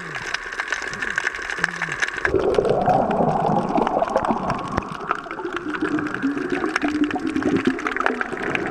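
Underwater ambience recorded by the camera: a steady crackle of small clicks through water noise, changing about two seconds in to a louder rush of water or bubbles.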